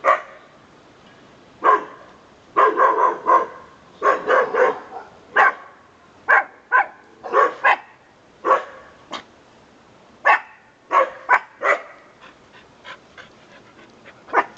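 A dog barking over and over in short, sharp barks, some coming in quick runs of three or four, with the barks weaker near the end.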